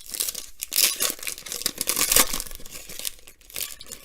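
A foil trading-card pack being torn open and its wrapper crinkled: a run of crackling rips and rustles, loudest in the middle and thinning near the end.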